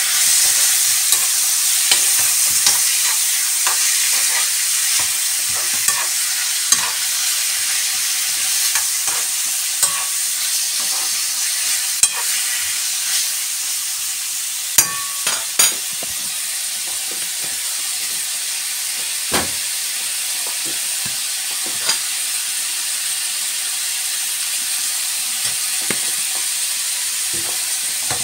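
Beef and sliced onions sizzling steadily in a non-stick frying pan over a high gas flame as they are stir-fried, with scattered sharp clicks of a metal spoon against the pan.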